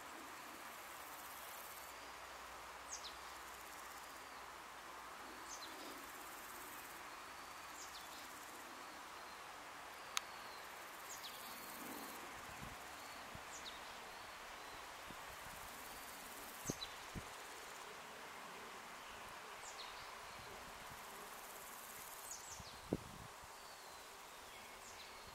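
Faint summer outdoor ambience: a steady insect drone with a high, shrill insect trill that comes and goes in stretches of a second or two, short falling bird calls every second or two, and a few faint knocks.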